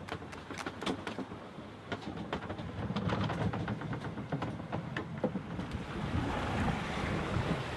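Wind and waves rushing past a sailboat underway on the open ocean, swelling about three seconds in. Before that, a run of quick sharp clicks and knocks.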